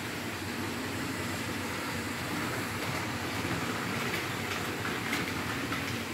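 Roco model NS 2400 diesel shunter running along model railway track with a train of wagons: a steady running noise of motor and wheels on the rails, with a few light clicks about four to five seconds in.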